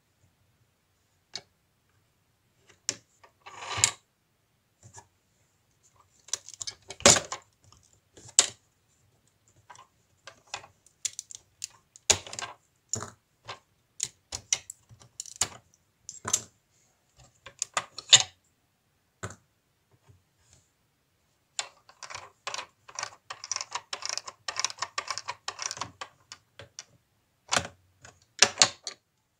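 Hard plastic LEGO parts clicking and clattering as a hand works the model's anchor winch, with a fast run of ratchet clicks about two-thirds of the way in as the winch turns against its pawl.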